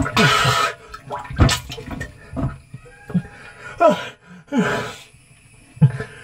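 Water splashing and sloshing inside a closed water tank, with a man's short gasps and strained grunts as he struggles for air at the surface. There is a loud splash at the start, a knock about a second and a half in, and then several gasps that fall in pitch.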